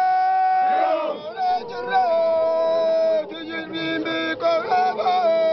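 Guji Oromo men chanting a gikkisa, a heroic boasting song, together in a group. Their voices hold long notes, broken by short wavering phrases between them.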